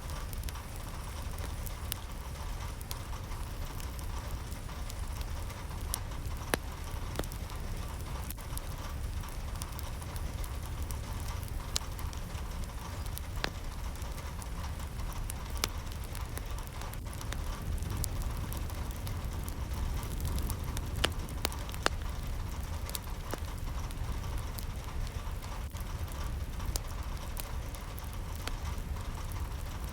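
Steady rain, with individual drops ticking and pattering over a low rumble.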